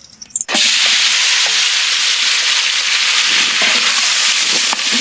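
Chopped onions hitting hot sesame oil, setting off a loud, steady sizzle about half a second in, with a few light clicks from stirring.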